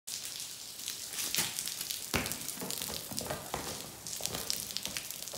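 Pouring rain on a wet stone patio: a steady hiss thick with sharp drip ticks, and a single thump about two seconds in.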